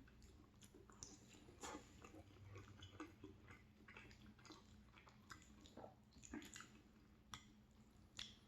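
Faint chewing of a mouthful of macaroni and cheese, with soft, irregular mouth clicks and smacks.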